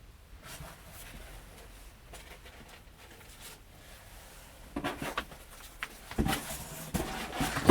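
Cardboard Funko Pop boxes being handled and unwrapped: soft rustling, then from a little over halfway a run of knocks and clatter as boxes are pulled out and set down, the loudest at the very end.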